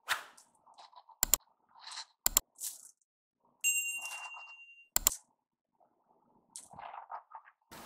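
Subscribe-button animation sound effect: a few sharp mouse clicks and a bright bell ding that rings out for about a second, with soft swishes between them.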